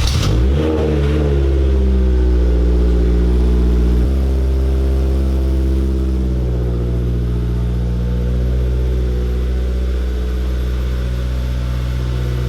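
Honda S2000 engine catching and running cold on its first start after a clutch replacement. The revs flare and settle within about a second, then it idles steadily, dropping a little about four seconds in.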